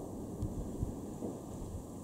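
Distant fireworks heard as a few soft, low thuds over a steady low rumble.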